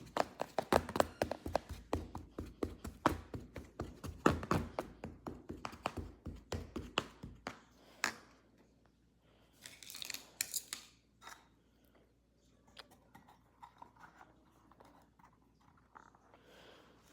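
Kinetic sand being worked by hand, giving a quick run of soft crunches and clicks, several a second, for about seven seconds, then a few fainter, scattered crunches.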